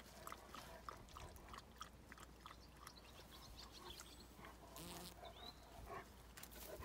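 Near silence: faint scattered clicks and rustles, with a brief high chirp about four seconds in.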